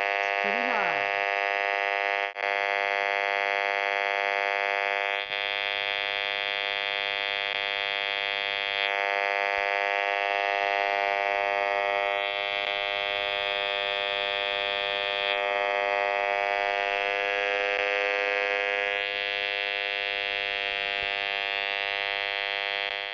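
High-frequency RF meter's speaker buzzing steadily as it turns the pulsed microwave signal of a VTech cordless phone base into audio: a dense, even buzz. It drops out for an instant about two and five seconds in, and its upper part changes tone several times as aluminum screening is moved over the phone base.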